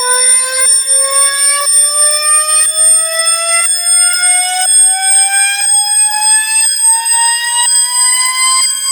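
Electronic alarm ringtone: a loud stack of tones climbing slowly and steadily in pitch, broken by a short pulse about once a second.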